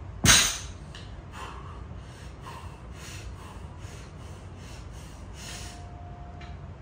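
A weightlifter's short, loud grunt of effort, then quick heavy breathing, about two sharp breaths a second, while straining through a heavy 140 kg set.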